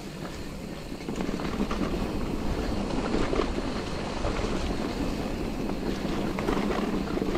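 Electric mountain bike rolling over a leaf-covered forest trail: tyres crunching and rattling over leaves and stones, with wind on the microphone. It gets louder about a second in.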